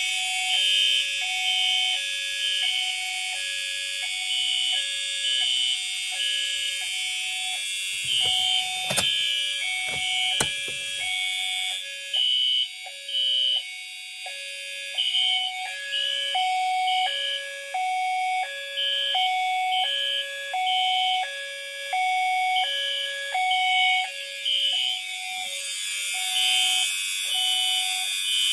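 Siemens ZH-MC-R and FCI HE8F fire alarm notification appliances sounding in alarm, set off by a manual pull station. An electronic tone switches back and forth between a lower and a higher pitch several times a second, with a higher-pitched horn tone pulsing in short groups over it. A few knocks come about eight to eleven seconds in.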